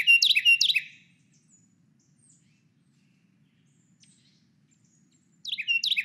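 Recorded Carolina wren song played back: a loud, ringing series of repeated phrases, about three a second, that stops about a second in. After a pause of about four seconds, a new bout of the same phrases starts near the end.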